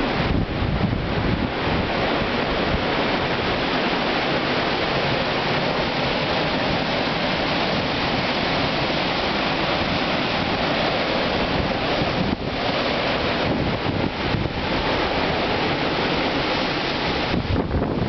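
Hurricane Sandy's wind blowing hard and steadily, a continuous rushing roar, with gusts buffeting the microphone.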